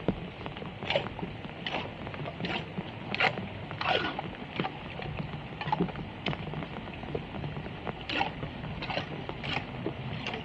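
Steady rain falling on a flooded road, with repeated splashes and wet slaps, roughly one a second, as hands scoop sodden leaves and debris out of a clogged street drain.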